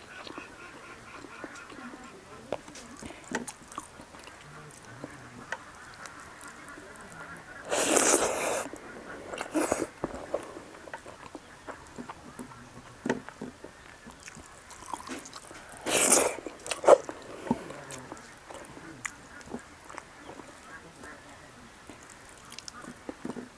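Eating by hand: quiet chewing and fingers working rice on a plate, with scattered small clicks, and two loud, short breathy sounds, one about 8 seconds in and one about 16 seconds in.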